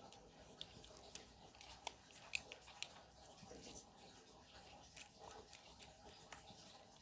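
Near silence, broken by faint, scattered sticky clicks and small crackles of slime being handled.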